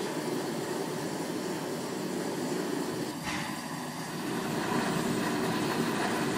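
Steady rumble of a burning forge fire in a knife-smith's workshop, with a single sharp click a little after three seconds.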